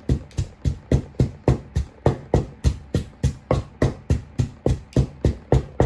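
Wooden pestle pounding chili peppers and garlic in a large wooden mortar: a steady run of dull thuds, about three a second.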